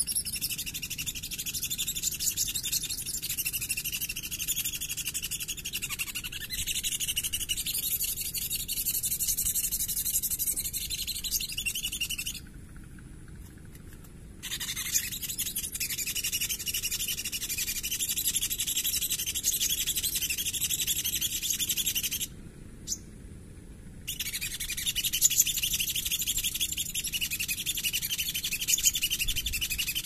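A cork rubbed on a drinking glass, giving a fast, shrill, chirping squeak that imitates a trapped bird in distress, used as a bird-trapping lure. It stops twice, about 12 s in and about 22 s in, for a second or two each time. A single short rising whistle sounds in the second pause.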